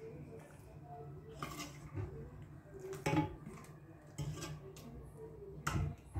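Metal ladle knocking and scraping against a stainless steel pot while scooping up small fish in sauce: about five separate clinks, the loudest about three seconds in and near the end.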